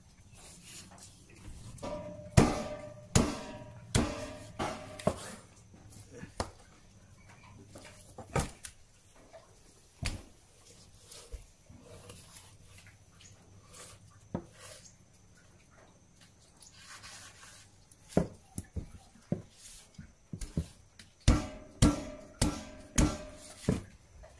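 A long knife chopping and cutting through a roasted carcass on a table: irregular sharp knocks, clustered near the start and again near the end, some with a short ring.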